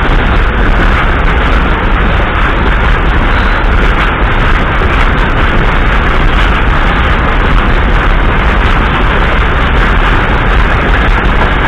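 Container freight train rolling past on the next track: a loud, steady rumble of wagon wheels on the rails that does not let up.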